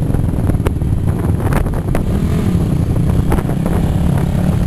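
Race quad (ATV) engines running, with wind buffeting the microphone and a few brief clicks.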